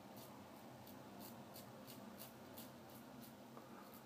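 Merkur 34C double-edge safety razor scraping through lathered stubble on the upper lip in short, faint strokes, about three a second.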